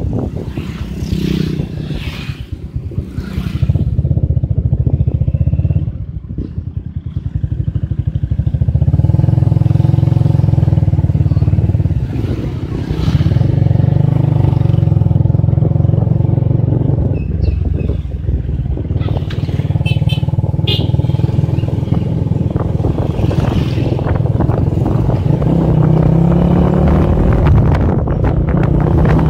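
Motorcycle engine running under way during a ride, its note rising and falling as the throttle changes, with brief drops in level a few times.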